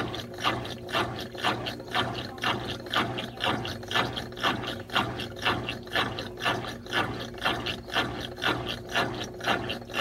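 Brastemp Clean BWC11 top-loading washing machine agitating during a rinse: a steady motor hum under a rhythmic mechanical clacking that repeats a few times a second as the agitator works back and forth.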